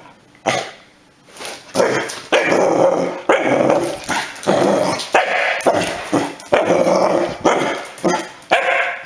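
Yellow Labrador puppy barking and growling in a run of short barks. The first two are faint, then louder barks come about one to two a second.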